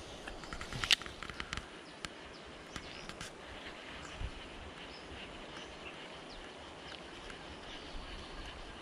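A few sharp clicks and knocks from a fishing rod and baitcasting reel being handled, bunched in the first second and a half with the loudest about a second in. A lone knock comes near the middle. Over it sits quiet outdoor ambience with a faint steady high hum.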